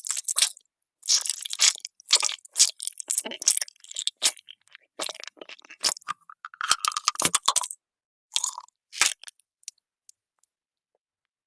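Close-miked crunchy food being bitten and chewed, in irregular bursts of sharp crunches, falling silent for about the last two seconds.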